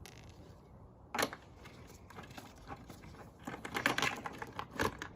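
Hand ratchet clicking in quick runs while bolts are backed out, with a sharper single knock about a second in.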